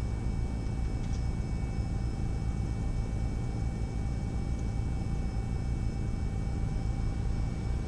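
Steady low electrical hum and hiss with faint, thin high-pitched whine tones, like mains-powered bench equipment, and a faint tick about a second in.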